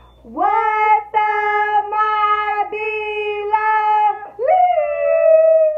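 A girl and a woman singing together: a run of about five held notes on one pitch, each about a second long, then a sliding rise into one long, higher note near the end.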